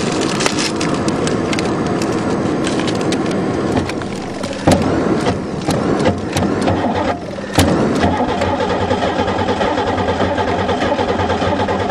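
Starter cranking the Buick's 3.8 V6 over without it firing, in several goes: the cranking drops out briefly and starts again about four and a half and seven and a half seconds in. The engine turns but won't start, which the owner puts down to its fuel pump.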